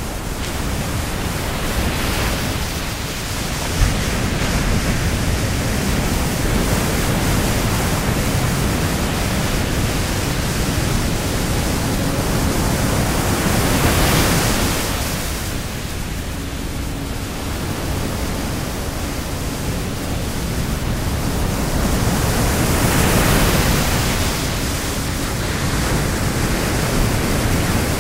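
Continuous rushing noise that swells louder about halfway through and again near the end, with one brief click a few seconds in.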